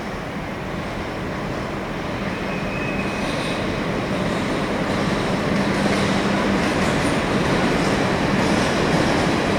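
Train running on the tracks, growing steadily louder as it comes closer, with a steady low hum and a brief high squeal about two and a half seconds in.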